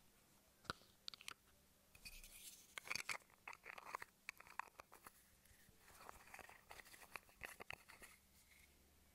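Close-up handling of a darts grip-wax product and its packaging: a few sharp clicks, then two spells of faint scratchy, crinkling rustles.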